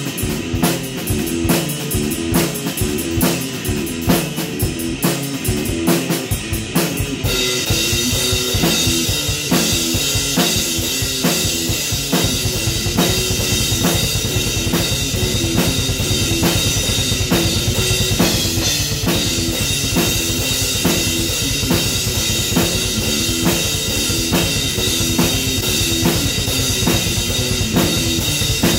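Drum kit and electric guitar jamming a rock groove, with a steady beat under a repeating guitar riff. About seven seconds in, a continuous cymbal wash comes in over the beat, and the low end fills out a few seconds later.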